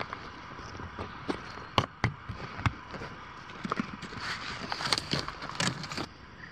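Short plastic clicks and knocks as the air valves and valve caps of an inflatable boat are handled and pressed shut, then a quicker run of footsteps on dry dirt and twigs near the end.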